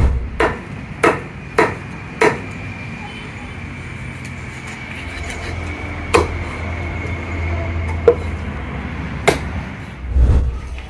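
Wood fire in a large rocket-style stove burning with a low, steady roar that swells through the middle. Sharp knocks sound over it: four evenly spaced in the first two seconds or so, then three single ones later.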